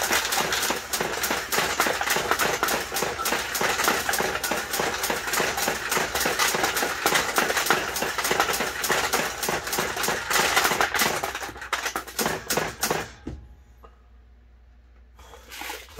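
Steel balls of a vintage mechanical pachinko machine being fired one after another and clattering down through the metal pins: a dense, rapid metallic rattling that stops about 13 seconds in, with one more short rattle near the end.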